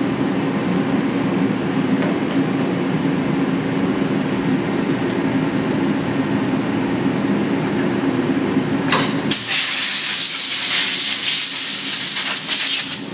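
Steady low machine hum with a few light clicks, then about nine seconds in, a loud spraying hiss that lasts about four seconds while the hum drops out.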